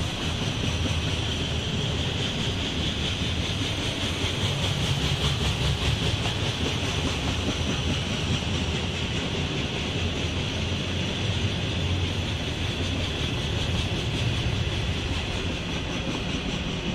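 Freight train of loaded steel-coil flatcars rolling past, a steady rumble and clatter of steel wheels on the rails.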